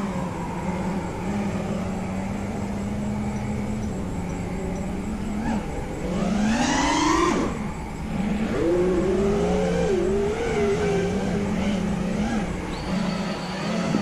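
FPV racing quadcopter's brushless motors (Emax RSII 2306 2400kv) and props whining with the throttle. A steady hum first, then a sharp rising whine about six seconds in as the throttle is punched, then a wavering pitch as the quad manoeuvres.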